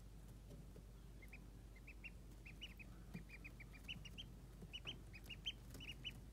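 Ducklings peeping: short, high chirps, a few at first, then in quick runs from about two and a half seconds in.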